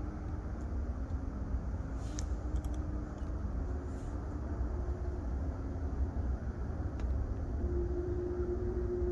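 Outdoor background rumble with a distant engine hum that becomes steadier and stronger near the end, and a few faint clicks about two seconds in.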